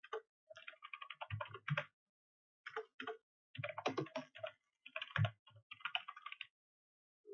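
Typing on a computer keyboard: quick runs of key clicks in several spurts, with short pauses between them.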